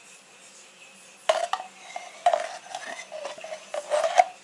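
A metal spoon knocking and scraping against kitchenware: a handful of short clinks with brief ringing, the loudest near the end.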